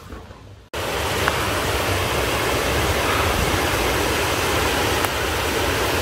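Steady rushing of flowing water from a stream, cutting in abruptly under a second in after a short quiet stretch.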